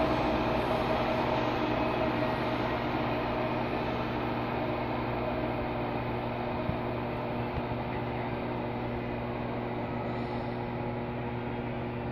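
MARTA heavy-rail subway train pulling away into the tunnel: its running noise and steady hum with several held tones fade slowly as it recedes.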